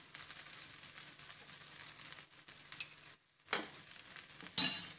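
Sliced onions and tomatoes sizzling in oil in a nonstick pan while a steel spoon stirs them, with ginger-garlic paste just added. The hiss breaks off briefly a little after three seconds, then sharp clacks of the spoon against the pan come near the end.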